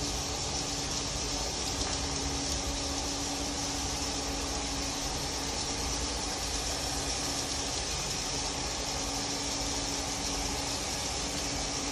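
Steady mechanical hum and hiss with a low held tone, like equipment running in an enclosed concrete room.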